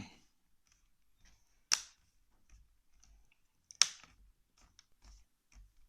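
Plastic laptop screen bezel pressed onto the screen, its clips snapping into place: two sharp clicks about two seconds apart, with faint small ticks between.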